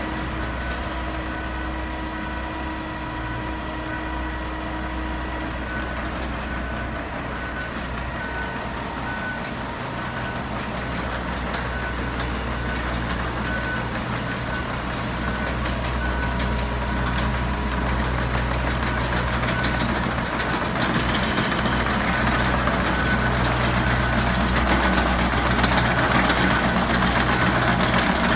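Heavy truck or construction vehicle engine running with its reversing alarm beeping about once a second. The engine grows louder over the last third, as if working harder or coming closer.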